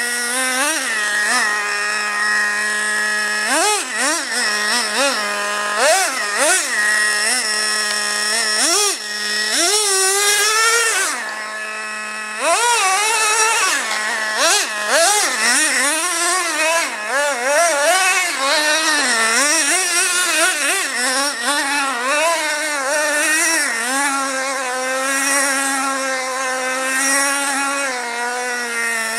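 Traxxas Revo RC monster truck's 2.5 cc nitro engine, a high-pitched buzz revving up and down in repeated throttle blips, dropping back to idle between them. It holds one longer, higher rev about ten seconds in.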